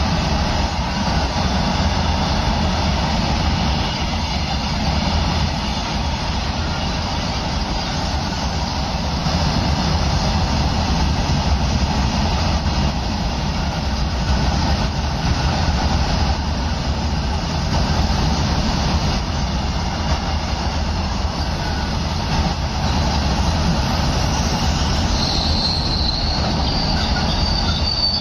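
Freight train of open-top coal wagons rolling past close by: a loud, steady rumble of steel wheels on the rails, with the regular clatter of wagon bogies over the track. Near the end a thin, high-pitched squeal joins in.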